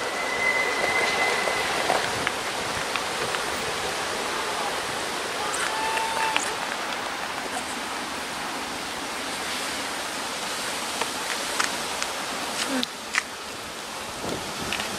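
Steady rushing outdoor noise, much like wind on the microphone, with a thin high tone lasting about two seconds at the start and a short lower tone about six seconds in.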